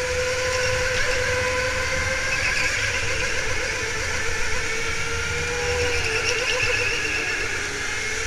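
OTL Storm electric rental go-kart's motor whining at speed, its pitch wavering a little as the driver goes on and off the throttle through the corners, over a low rumble of the tyres on the concrete track.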